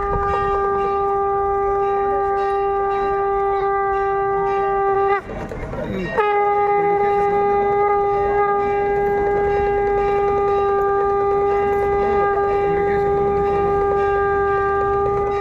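Conch shell (shankh) blown in a long, steady note; about five seconds in it stops for a breath, then sounds again at the same pitch and is held.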